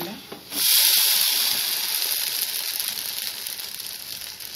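Batter pancake with vegetables sizzling in hot oil on a frying pan just after being flipped with a spatula. The sizzle starts loud about half a second in and slowly dies down.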